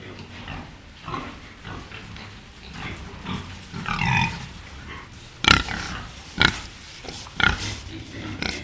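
Pigs grunting in a run of short, irregular grunts, then three louder, sharper calls about a second apart in the second half.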